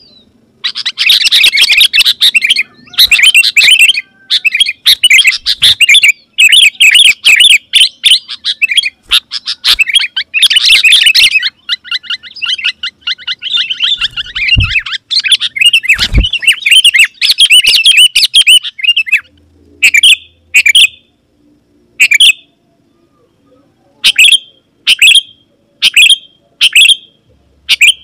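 Sooty-headed bulbul (kutilang) singing loudly and persistently: fast, busy chattering phrases with hardly a pause, breaking in the last third into short separate calls about once a second. Two brief low thumps come in the middle.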